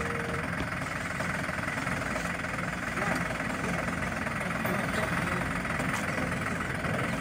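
Radio-controlled dump truck running with a steady mechanical hum as it drives through loose sand under a load of sand.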